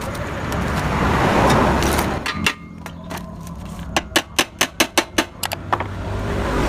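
A swelling rush of noise for the first two seconds, then a quick run of about eight hammer blows on metal, about four a second, ringing sharply: a hammer working the steel of a motorcycle exhaust muffler that is being opened up.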